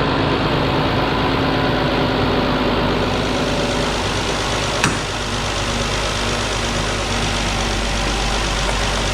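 3.6 L Pentastar V6 engine idling steadily after a water pump, thermostat and coolant hose replacement, with one sharp click about five seconds in.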